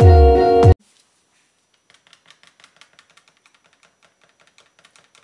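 Background music cuts off suddenly under a second in. After a short pause, a small whisk rapidly clicks against the sides of a plastic cup as it stirs soap batter, several faint clicks a second.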